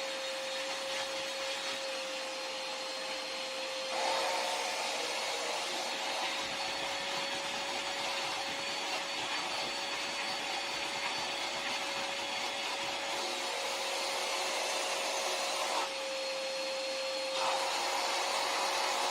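Koblenz portable wet/dry shop vacuum running, loud, with a steady motor whine over the rush of air. Its sound grows fuller about four seconds in, dips briefly a little before the end, then swells again.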